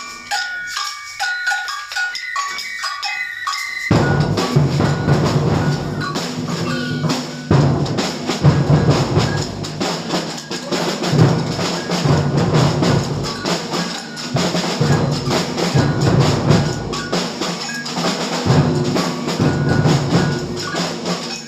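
Samba percussion band playing a groove. At first only a pattern of short, high pitched tuned notes is heard. About four seconds in, the full band comes in with deep bass drums pulsing under dense snare-drum strokes.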